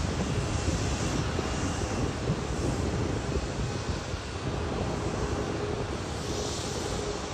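Airliner engines running: a steady rumbling roar with a faint steady hum in it, easing off slightly over the few seconds.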